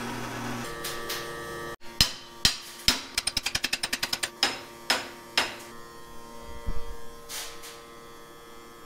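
Hammer blows on steel, driving a solid 3/4-inch double-D steering rod into a hollow 1-inch double-D rod: a few single blows, then a quick run of light rapid taps for about a second, then a few more spaced blows. A drill press motor hums at the start and stops within the first second.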